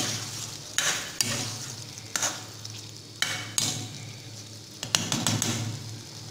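Steel spoon stirring paneer gravy in a metal kadhai, clinking and scraping against the pan several times, over the steady sizzle of the gravy frying in oil.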